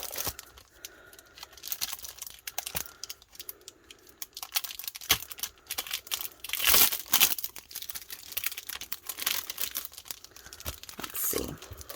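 Package of heat transfer vinyl sheets being opened and handled: packaging crinkling and rustling in irregular bursts with scattered clicks, loudest about seven seconds in.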